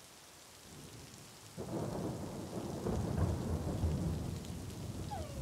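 Rain falling, with a rumble of thunder that breaks in suddenly about a second and a half in and rolls on.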